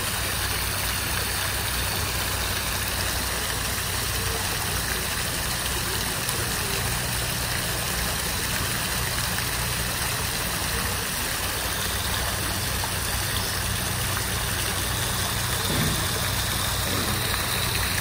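Water fountain splashing steadily, an even hiss of falling water that holds at one level throughout.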